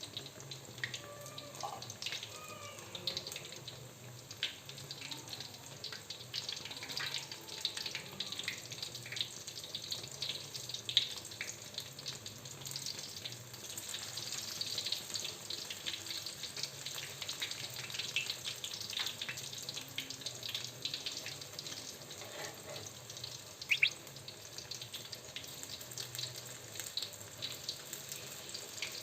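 Flour-battered tempe frying in hot oil: steady sizzling with dense irregular crackles and a couple of louder pops.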